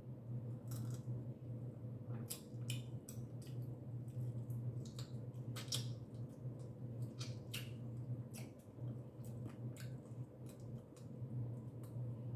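Boiled seafood being peeled by hand, the shells cracking and snapping in a run of irregular sharp clicks, with some wet squishing.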